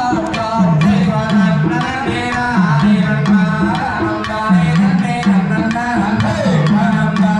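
Tamil folk music accompanying valli kummi dance: a hand drum keeps a steady rhythm under a short melody phrase repeated over and over.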